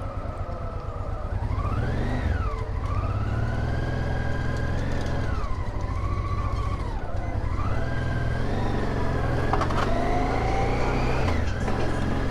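Vintage Honda Africa Twin's V-twin engine running on the move: a steady low rumble with a whine that rises and falls several times as the throttle is opened and closed.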